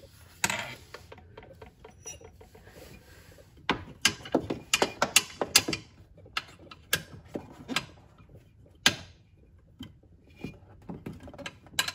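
Hand ratchet clicking in short irregular runs, with sharp metallic taps, as a nut is snugged up by hand behind a horn bracket on a golf cart frame.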